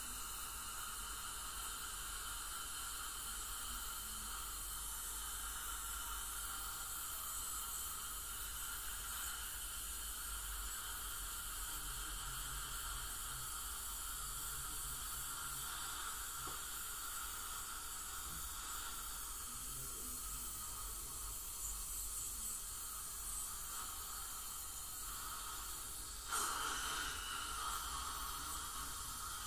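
Dental suction and scaling equipment hissing steadily at work in a patient's mouth during a teeth cleaning, with a brief louder burst near the end.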